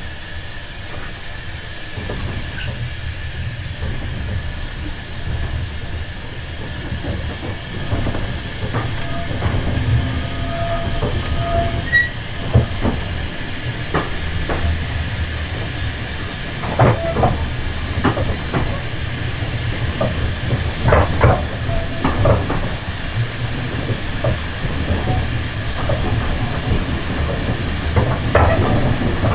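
A former GWR autocoach riding behind a steam locomotive, with a steady low rumble and scattered clicks and knocks of the wheels over the rail joints. These grow louder and more frequent as the train gathers speed, with some hiss of steam.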